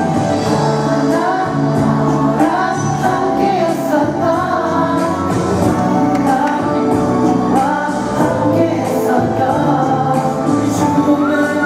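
Korean pop song performed live, with singing over loud instrumental music with a steady beat.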